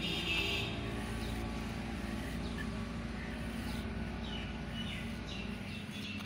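A knife scraping and shaving a dry block of white cement, the powder crumbling into a plastic tub, over a steady low hum and a few short bird chirps.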